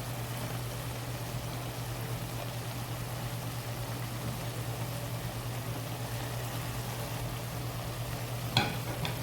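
Chicken curry simmering in a pan on the stove, a soft steady bubbling over a constant low hum, with two sharp clicks near the end.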